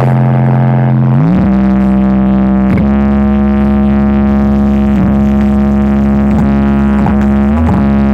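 Loud music played through a large sound system: a sustained, buzzy droning note that slides up in pitch about a second in and then holds, with brief dips every second or two.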